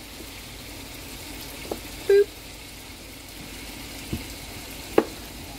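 Chicken breasts browning in a skillet, a steady sizzle, with a few short knocks of a knife and potatoes on a cutting board, the sharpest near the end.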